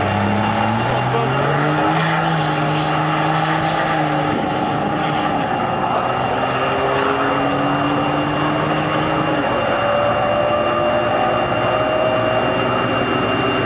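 Diesel pickup truck accelerating hard down a drag strip from a standing start, its engine note climbing through each gear and dropping at two upshifts, about four and nine and a half seconds in. A steady high whistle runs under it.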